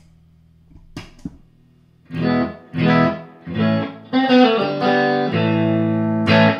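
Electric guitar played through a Mosky SHO single-knob booster pedal. After a few faint clicks, chords are struck one after another from about two seconds in, and the last one is left to ring before a fresh chord near the end.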